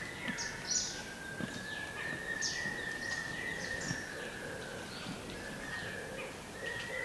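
Forest ambience: many short, falling bird chirps over a steady high drone.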